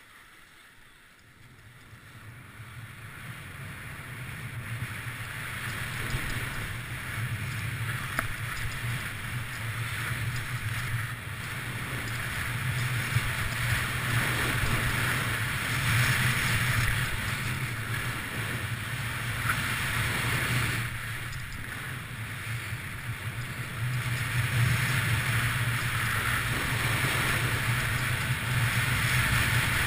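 Skis sliding and carving over packed groomed snow, with wind rushing over the camera microphone as the skier runs downhill. It grows louder over the first several seconds as speed builds, with a short lull about two-thirds of the way through.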